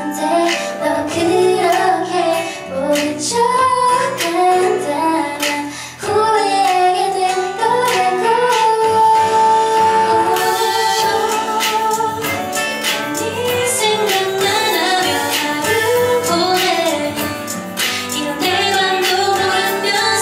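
Two women singing a song live into microphones over an instrumental backing, with one long held note near the middle.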